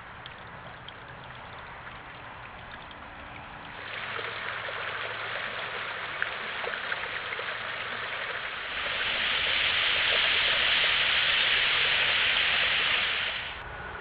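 Steady rushing hiss of creek water, picked up by the trail camera's microphone; it grows louder about four seconds in, louder again near nine seconds, and drops back just before the end.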